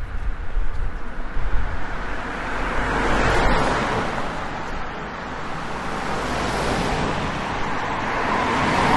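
Road and wind noise of a car driving, a steady rushing that swells and eases, with uneven low buffeting thumps in the first couple of seconds.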